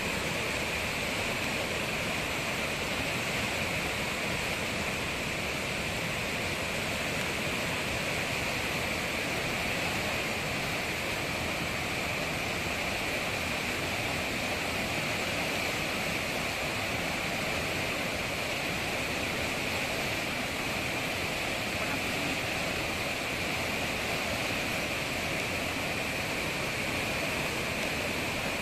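White-water river rapids rushing over boulders: a steady, unbroken sound of fast-running water.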